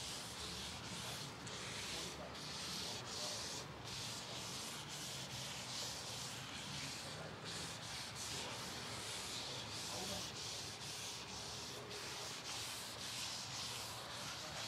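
A cloth rubbing over a ridged American white oak cutting board in repeated back-and-forth strokes as oil is wiped into the wood, making a soft hiss with each stroke.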